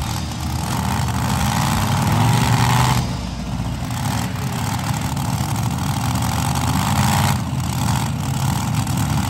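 Modified pulling tractor's big engine running at the starting line, its revs climbing twice with a rising whine and dropping back sharply each time.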